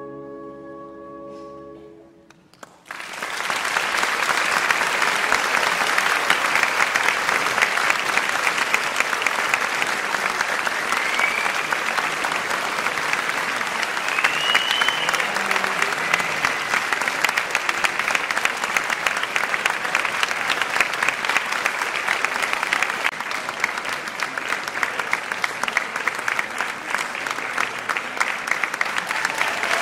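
An opera orchestra's final held chord fades out, and about three seconds in a theatre audience breaks into steady applause.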